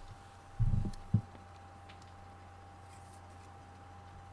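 Faint handling of a stack of trading cards in the hands: two soft low knocks about a second in, then a few faint clicks. A steady faint hum runs underneath.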